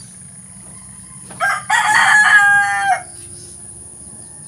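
A rooster crows once, starting about a second and a half in and lasting about a second and a half, over a steady high chirring of crickets.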